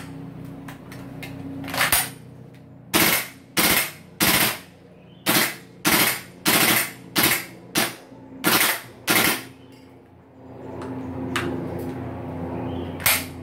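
WE SCAR-L gas blowback airsoft rifle firing about a dozen single shots at uneven intervals of half a second to a second. Each is a sharp pop with the bolt's blowback clack. The firing stops about two-thirds of the way in, and one more shot comes near the end.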